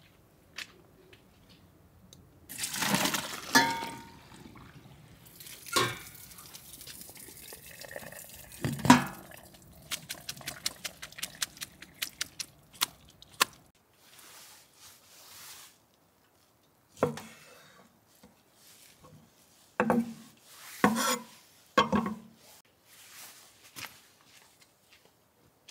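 Hot blanching water and greens poured from a pot into a metal colander in a stainless-steel sink: splashing and pouring twice, a metal clunk, then a quick run of drips. A few separate knocks follow, like dishes being set down.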